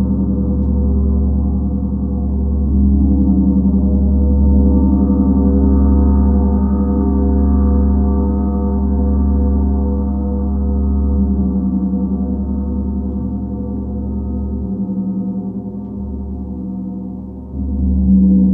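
Planetary gong sounding as a long, dense drone of many overlapping tones with a deep hum underneath, slowly swelling and fading, then rising sharply again near the end.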